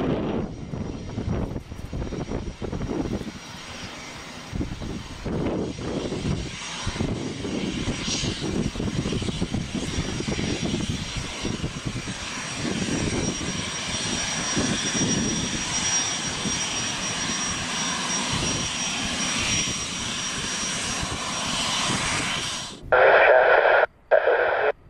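Boeing C-17A Globemaster III taxiing, its four Pratt & Whitney F117 turbofans running at taxi power: a steady jet rumble with a thin high whine that grows stronger in the second half. It cuts off suddenly near the end, and a louder burst of air-traffic-control radio takes over.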